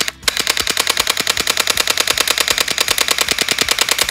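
Uzi AEG airsoft carbine firing full auto, its electric gearbox cycling in a rapid, even stream of shots. After a short break right at the start, it fires one long continuous burst.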